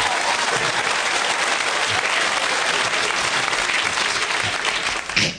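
Studio audience applauding steadily, then cutting off sharply at the very end.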